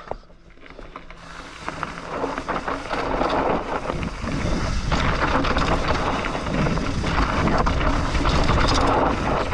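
Mountain bike tyres rolling and skidding down loose, dusty dirt, with wind rushing over the microphone. The noise builds over the first few seconds as the bike picks up speed.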